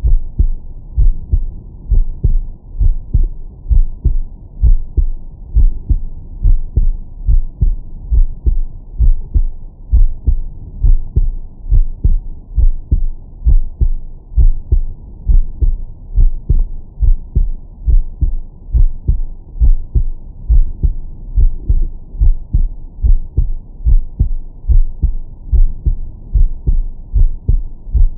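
A man's heartbeat heard through a Stemoscope digital stethoscope on its 20–1000 Hz filter: deep lub-dub thumps repeating in a steady, even rhythm.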